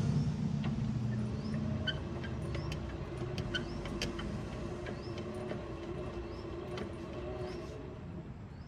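Electric tricycle's rear drive motor and gear housing turning the raised rear wheel: a steady hum with light clicks and a small chirp about once a second. The low part of the hum drops away about two seconds in. The owner hears no abnormal noise and takes it for normal running.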